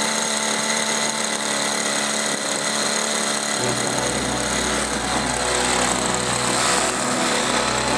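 RC model Hawk jet's engine running steadily with a high-pitched whine. A low rumble joins about three and a half seconds in, as the model is lifted.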